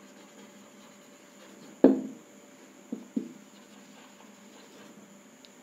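Whiteboard marker writing on a whiteboard, with a few sharp knocks as the marker strikes the board: a loud one about two seconds in, then two quick ones about a second later.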